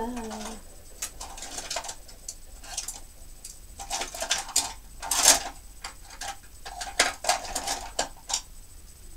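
Irregular light clicks, taps and rustles of small objects being handled, as in rummaging through makeup items and brushes, with a louder knock about five seconds in.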